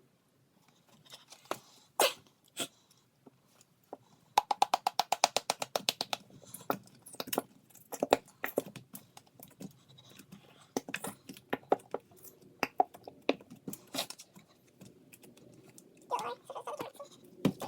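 Homemade borax slime being squished and poked by hand, making a string of wet clicks and pops, with a fast run of clicks a few seconds in.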